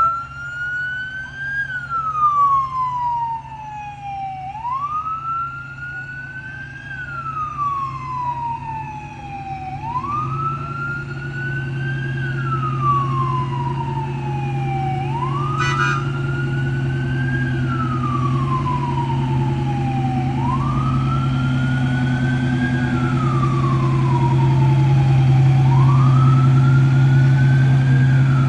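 Fire truck siren wailing in repeated cycles, each rising quickly and then falling more slowly, about every five seconds. Underneath runs the steady low hum of a heavy vehicle's engine, which grows louder toward the end.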